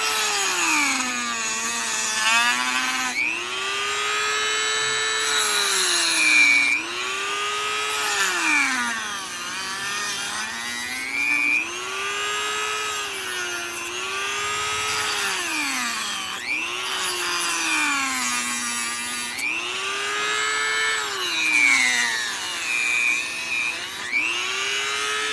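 Dremel rotary tool with a cut-off wheel cutting a hole in a hard plastic switch panel. Its motor whine drops in pitch each time the wheel bites into the plastic and climbs back as it eases off, again and again.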